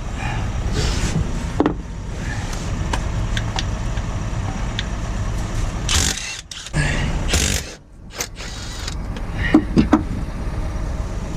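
Power tool run in short bursts on the bottom bolts of a DAF LF truck's gearbox, over a steady low hum, with three sharp metallic clicks in quick succession near the end.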